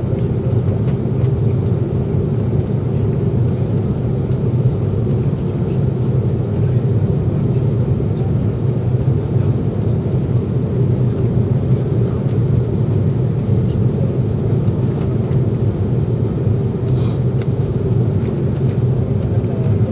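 Steady cabin noise inside an Airbus A340-300 airliner on final approach: its four CFM56 engines and the airflow over the airframe make an even, low rumble.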